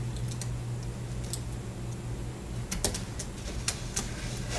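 Scattered light clicks and taps of a phone's circuit board and small parts being handled and set into the plastic housing, more frequent in the second half, over a steady low hum.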